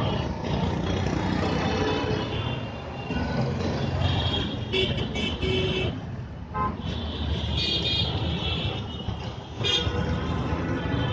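Busy city street traffic running, with vehicle horns honking repeatedly over the engine noise, in bursts about four seconds in, around eight seconds and again shortly before the end.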